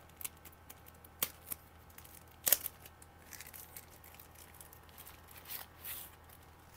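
Soft white protective wrap rustling and crinkling as a handheld controller is pulled out of it, with a few sharp crackles, the loudest about two and a half seconds in.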